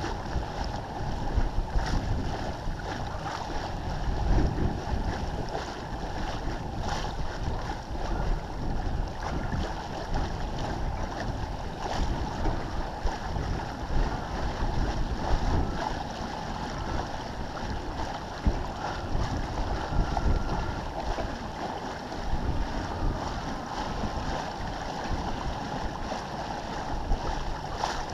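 Water rushing and splashing along the hull of a First 30 sailboat moving under sail, with wind buffeting the microphone.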